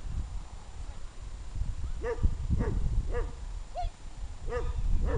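Young dog barking in about six short, high-pitched yips, starting about two seconds in, each rising and falling in pitch.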